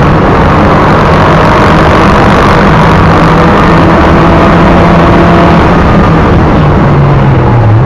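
Mitsubishi Lancer Evolution VIII's turbocharged 2.0-litre four-cylinder engine running loud and steady under way, heard from inside the cabin along with road noise. Near the end the engine note falls, then jumps back up.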